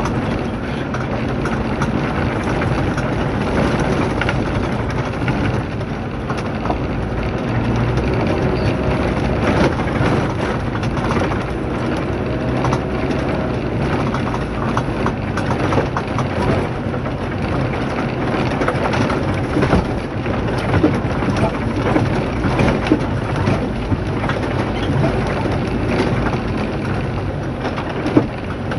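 A vehicle driving slowly over a rough, stony dirt road, heard from inside: the engine runs steadily under a constant rumble and rattle of tyres on gravel, with many small knocks from bumps. One sharper knock comes near the end.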